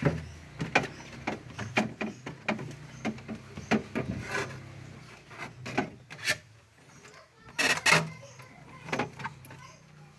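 Irregular scraping and sharp knocks of frost being chipped and scraped off the walls of a refrigerator's freezer compartment, over a steady low hum. The loudest scrape comes about eight seconds in.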